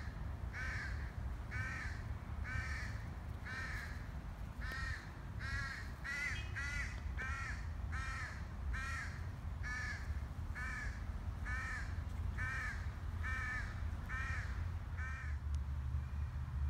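A bird calling over and over, about one short call a second, stopping shortly before the end, over a low steady rumble.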